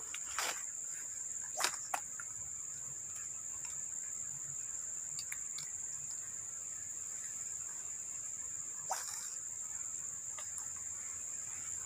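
Steady high-pitched drone of insects, with a few brief clicks and knocks in the first two seconds and again about nine seconds in.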